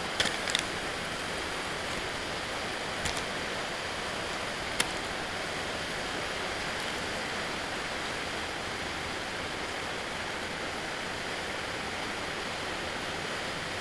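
Steady even hiss of room noise, with a few short light clicks in the first five seconds as small plastic toy bricks are handled.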